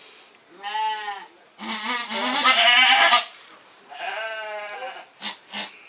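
A doe goat in labour bleats three times. The middle cry, about a second and a half long, is the longest and loudest and wavers.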